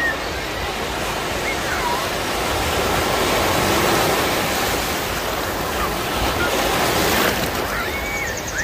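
Small sea waves breaking and washing up a sandy shore right at the microphone, a continuous rush of surf that swells loudest about three to four seconds in as a wave breaks into foam, and surges again near the end.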